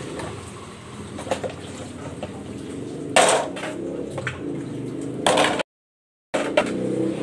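Dishes being washed by hand: water and the clatter of plates, with two short louder splashes or clanks about three and five seconds in. The sound cuts out completely for under a second near the end.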